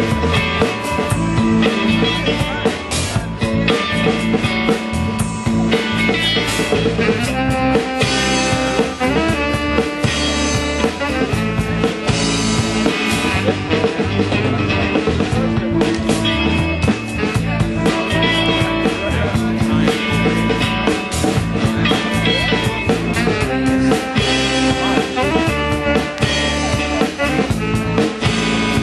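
Live band playing loud, continuous music with guitars and a drum kit keeping a steady beat.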